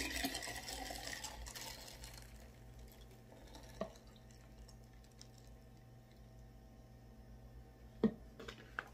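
Drink poured from a plastic bottle into a glass mason jar full of ice, the pour fading out about two seconds in. Then quiet, with a single knock near four seconds and another near the end.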